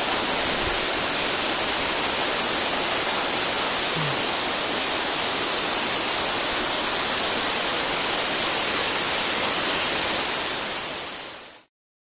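Small waterfall cascading down a rocky stream bed: a steady rush of falling water. It fades away and drops to silence just before the end.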